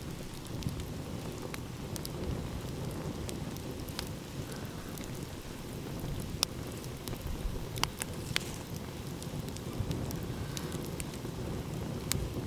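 Wood fire crackling with irregular sharp pops and snaps, a few louder ones around the middle, over a steady low rumble of ocean waves.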